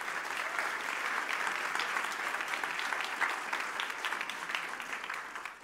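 Audience applauding, a steady patter of many hands clapping that thins out near the end.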